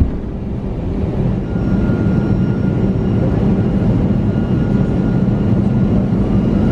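Airbus A320 jet engines running, heard from inside the cabin: a steady low drone, with a faint high whine coming in about a second and a half in.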